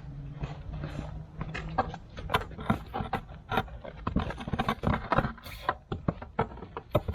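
A bluestone stair tread being knocked down into its wet concrete bed: a quick, irregular run of sharp knocks, several a second, from about two seconds in. A low steady hum fades out about two seconds in.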